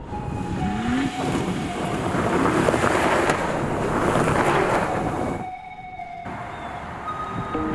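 Off-road pickup trucks, Ram 1500 RHOs among them, accelerating hard past on a dirt track: engine notes rising in pitch under a loud rush of tyres and flung dirt. The noise peaks as they go by and falls away abruptly about five and a half seconds in.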